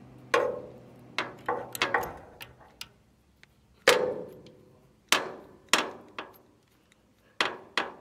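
Irregular metallic clinks and knocks, about a dozen at uneven intervals, each ringing briefly: a ratchet and socket being handled against a bolt and the steel knotter parts of a baler while the knife is bolted back on.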